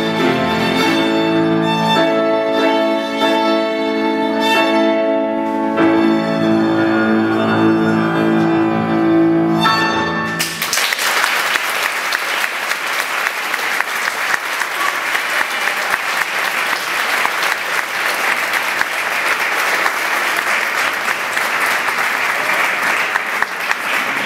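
Violin and grand piano playing the closing bars of a duet, ending on a held chord about ten seconds in; the audience then applauds steadily.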